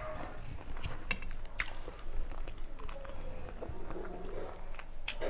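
Close-miked eating sounds: someone chewing a mouthful, with a few sharp crisp clicks and crunches.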